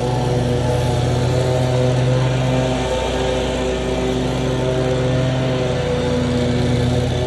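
Lawn mower engine running steadily, its pitch shifting slightly now and then.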